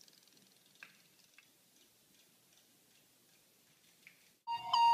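Faint soft ticking and a few light clicks from a battery-powered toy robotic fish splashing in a water-filled sink. About four and a half seconds in, loud electronic beeping tones start suddenly, like a ringtone.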